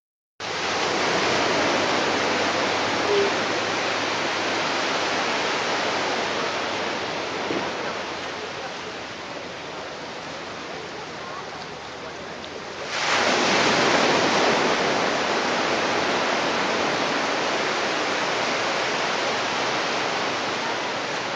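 Waves washing on the beach: a steady rush of surf that slowly fades, then swells again suddenly as another wave breaks about two-thirds of the way through.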